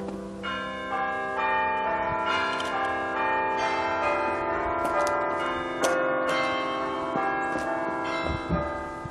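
Music of ringing bell-like notes, a new note struck about twice a second, each note sustaining and overlapping the next in a chiming, pealing melody that fades near the end.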